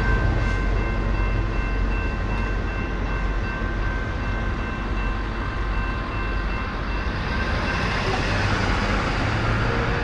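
Rumble of a freight train moving away from a grade crossing, with the crossing bell ringing steadily until it stops about seven seconds in, as the gates lift. Near the end a pickup truck drives up to the crossing.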